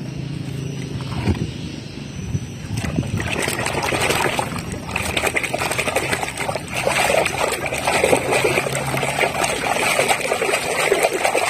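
Water splashing and trickling over a plastic toy car as it is washed clean of mud, growing busier and louder about three seconds in.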